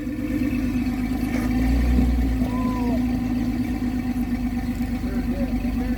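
Off-road vehicle engine running steadily at low speed, a constant hum with a deep rumble underneath.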